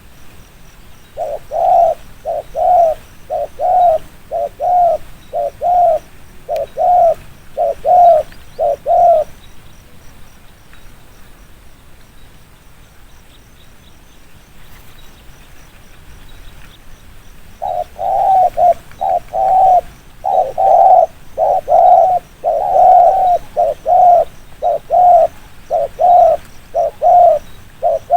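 Spotted dove giving its fast repeated cooing ('thúc gù'), short coos at about two a second in two bouts: one from about a second in to about nine seconds, then after a pause a longer bout from about eighteen seconds on.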